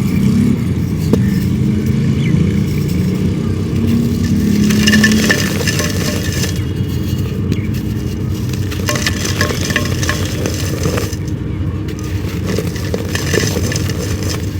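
Dry clay being crumbled, crackling and scraping in scattered bursts over a steady low vehicle engine rumble. The engine hum is strongest in the first five seconds.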